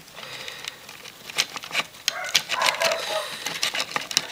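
Irregular light clicks and taps of a small plastic electronic game being handled and worked on as a capacitor is taken out of it, with a few faint short calls in the background about halfway through.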